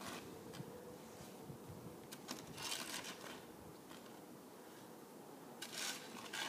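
Faint scrapes of a shovel pushed through snow along pavement, about three of them: a brief one at the start, a longer one around the middle and another near the end.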